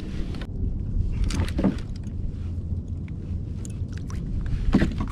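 Fishing gear being handled on a kayak: a few short clicks and rattles, over a steady low rumble.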